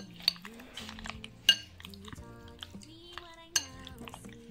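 A metal utensil clinking against a glass bowl while stirring pasta salad: a few sharp clinks, two of them loud, over background music.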